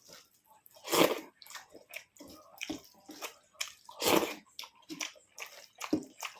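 Close-miked eating sounds: irregular wet smacks and chewing clicks from a mouth. There are two louder bursts, about a second in and about four seconds in.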